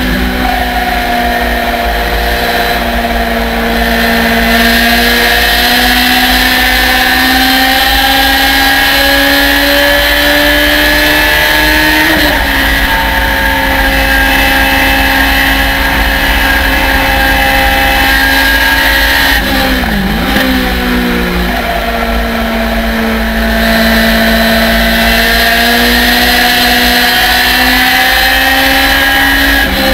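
A Thunder Roadster race car's engine at high revs, heard onboard. Its pitch climbs slowly with speed, drops sharply about 12 seconds in at an upshift into fifth, and dips briefly around 20 seconds and again at the end as the driver lifts and shifts down for corners.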